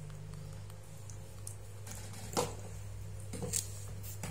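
Baby monkeys eating: a few brief wet smacks and clicks, the loudest about two and a half seconds in, over a steady low hum.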